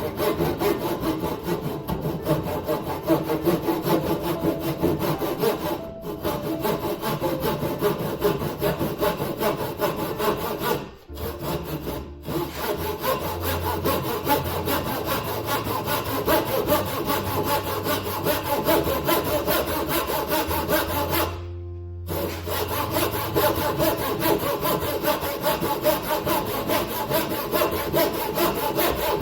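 A saw cutting wood in quick, steady strokes, as when cutting a dovetail joint. The sawing cuts off abruptly for short moments several times. A low hum runs underneath through the middle stretch.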